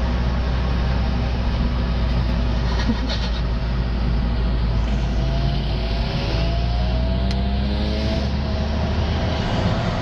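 Steady engine and road drone inside a following car's cabin, with the KTM 360 supermoto's exhaust ahead. An engine note rises in pitch in the middle as it accelerates.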